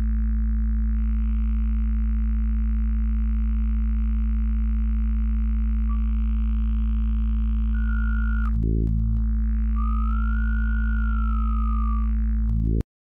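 Moselle software synthesizer's wavetable oscillator playing a sustained, bass-heavy drone with no envelope or filter, its timbre shifting as harmonics are painted into the wavetable. Two-thirds of the way in the tone briefly breaks. Near the end a single bright overtone comes in, gliding up and then down, before the tone cuts off suddenly.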